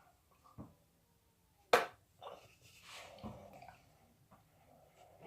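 Slime being stirred with a spoon in a bowl: soft, scattered stirring noises, with one sharp knock of the spoon against the bowl a little under two seconds in.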